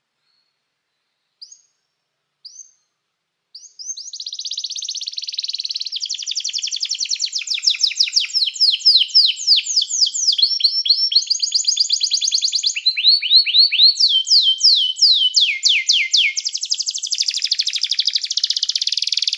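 Domestic canary singing: two short single chirps, then a long unbroken song of rapid trills and rolls, the phrase changing every second or two.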